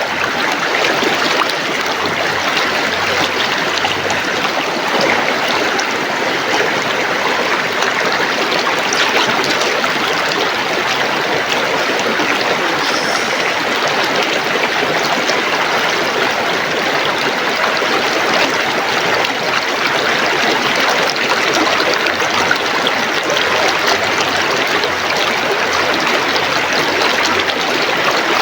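River water flowing, a steady even rush with no break or change.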